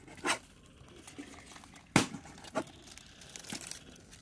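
Crinkling and rustling with a few sharp knocks; the loudest knock comes about two seconds in, with another just after.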